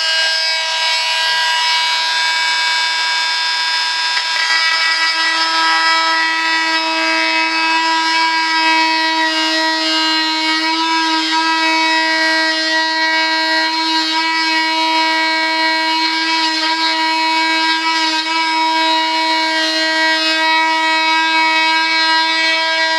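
Handheld rotary tool running at a steady high speed, with an even whine, as it cuts the rudder out of the RC jet model's tail fin.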